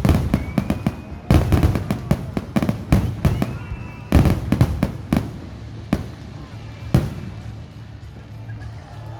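Fireworks going off in a rapid string of sharp bangs and crackles, with a couple of short whistles; the bangs thin out after about five seconds, with a last single bang about seven seconds in.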